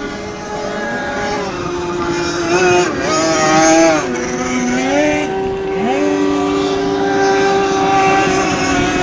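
Racing powerboat engines running at high revs, two engine notes overlapping. One holds steady while the other drops around the middle, as the throttle is eased, and climbs back up.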